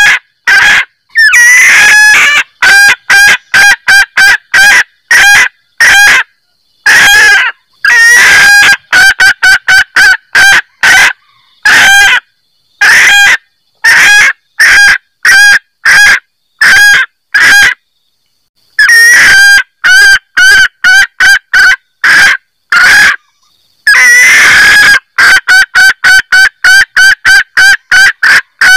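Female junglefowl cackling: rapid runs of short, sharp 'kek' calls, several a second, in loud bouts broken by short pauses, with a few longer, harsher calls among them. This is the hen's call that draws male junglefowl.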